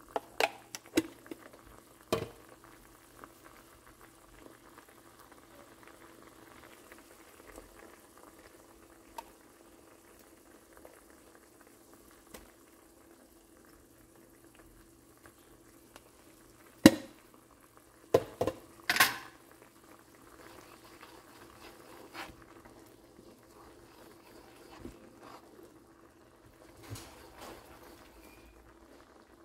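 Fish-sauce and sugar sauce boiling in a pan with a faint, steady bubbling. Sharp utensil knocks and clinks cut through a few times near the start and again in a loud cluster past the middle, as seasoning is spooned in and the sauce is stirred.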